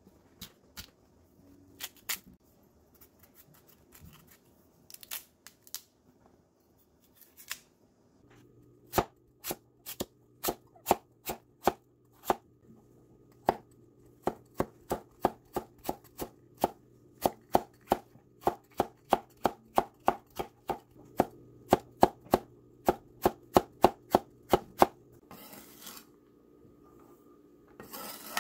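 Knife and cleaver chopping kohlrabi on a wooden cutting board: a few scattered cuts at first, then a steady run of about two to three chops a second. Near the end the cleaver scrapes twice across the board, gathering the diced pieces.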